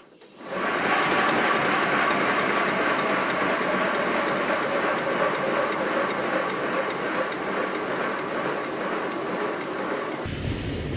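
Sweet William 7¼-inch gauge locomotive running in reverse gear on compressed air, a fast steady hiss of air blowing through its open cylinder drain cocks with rapid beats of exhaust. It starts about half a second in and turns duller near the end.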